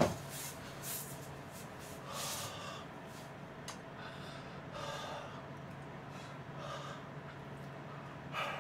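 A man breathing hard while doing push-ups: faint, short breaths out, one every second or two.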